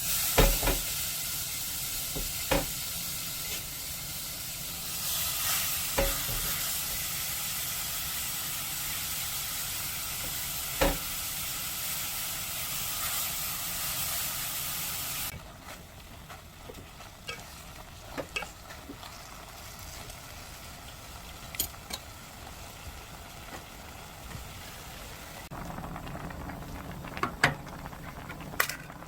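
Food sizzling as it fries in a pan, with a few sharp clicks along the way; the sizzle cuts off suddenly about halfway through, leaving a quieter background with scattered clicks.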